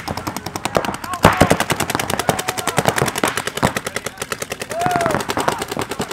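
Paintball markers firing in rapid continuous strings, many shots a second, with voices shouting over the shooting.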